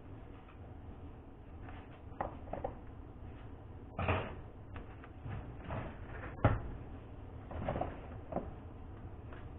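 Scattered knocks and clatters of objects being handled, the two loudest about four and six and a half seconds in, over a steady low background hum.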